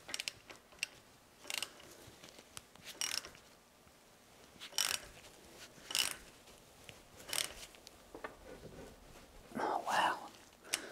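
Ratchet wrench clicking in short bursts about every second and a half, worked back and forth with a pipe extension on the shaft that rotates a Doall milling machine head. The head will not turn.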